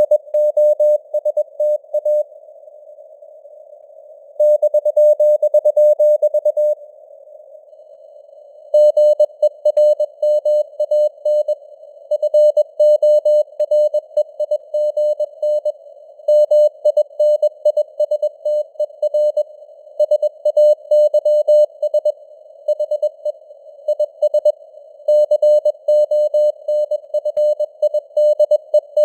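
Morse code (CW) at 21 words per minute: a single steady mid-pitched tone keyed on and off in dots and dashes, spelling out news headlines. It sits over a narrow hiss of simulated radio band noise that carries on between characters. Near the start there is a pause of about two seconds with only the noise.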